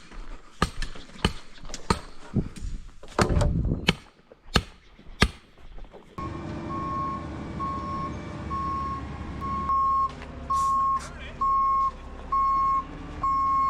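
Scattered knocks and clicks, then from about six seconds in a concrete mixer truck's diesel engine running steadily as it backs up, its reversing alarm beeping about once a second.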